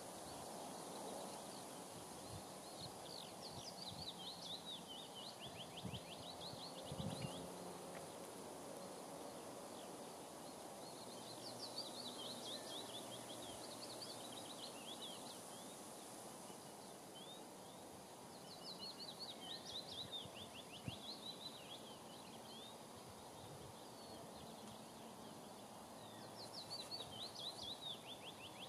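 A songbird singing short phrases of rapid high notes four times, about every seven or eight seconds, over a faint steady outdoor hiss.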